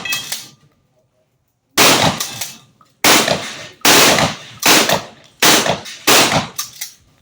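Shotgun firing a rapid string of about six shots. After a pause near the start, the shots come roughly one every 0.8 seconds.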